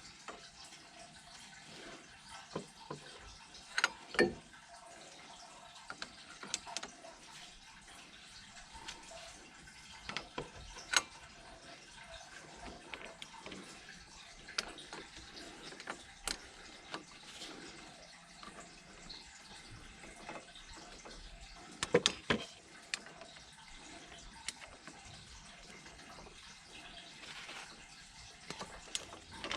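Irregular knocks and clicks of pipework and fittings being handled during plumbing work, over a faint steady hiss like trickling water. The loudest knocks come about four seconds in and again about twenty-two seconds in.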